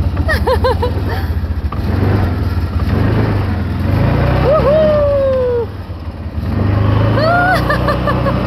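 CFMoto 800 ATV engine running steadily as the quad drives along, with its level dipping briefly a little past the middle. Over it, a voice makes a few wordless calls, including one long falling call near the middle.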